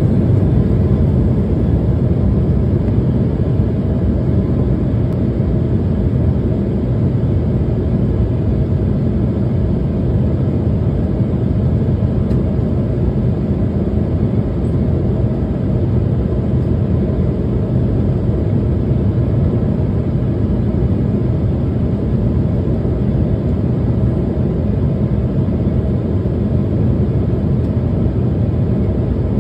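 Steady, low cabin noise inside an Embraer E190 airliner in flight: airflow over the fuselage and its GE CF34 turbofan engines, heard from a window seat by the wing.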